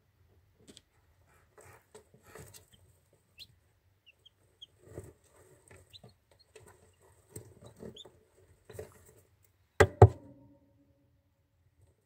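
Chicks peeping faintly with a few short high peeps, amid soft rustling and scratching in wood-shaving litter. About ten seconds in, two loud knocks in quick succession, ringing briefly, are the loudest sound.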